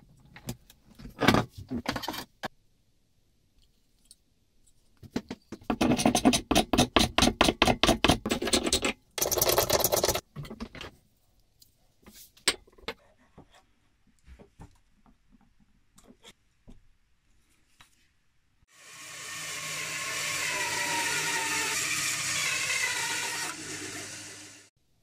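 A bandsaw running and cutting through a boxwood blank for about six seconds near the end; it comes in over a second and fades out. Before it come knocks and clatter of wood and tools handled on a wooden workbench, and a fast, loud run of rhythmic strokes, several a second, lasting about five seconds.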